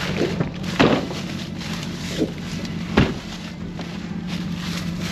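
Footsteps crunching through brush: three separate steps about two seconds apart, over a steady low hum.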